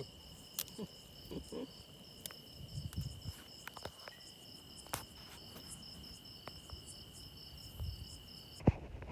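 Insects trilling steadily: one continuous high trill with a faster pulsing chirp above it, over scattered light clicks and soft knocks. Near the end the trilling cuts off abruptly at a single sharp click.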